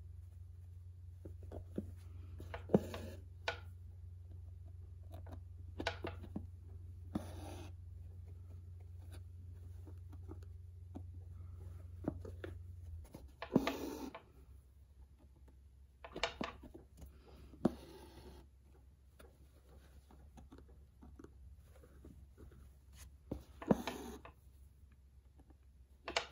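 Embroidery needle and floss being pulled through a denim cap and its stabilizer while satin-stitching: faint, scattered scratchy pulls and pokes, about a dozen, over a low steady hum that drops in level about halfway through.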